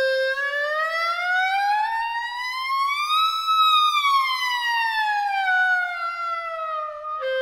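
B♭ clarinet playing a wide glissando: a held note slides smoothly up for about three seconds, pauses briefly at the top, then slides back down over about three seconds and settles on a held note close to where it began.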